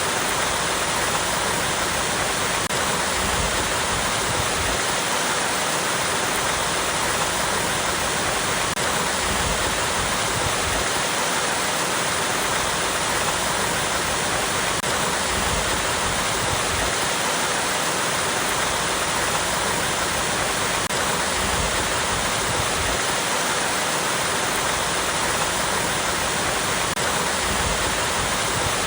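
Small waterfall pouring over rocks: a steady, unbroken rush of splashing water.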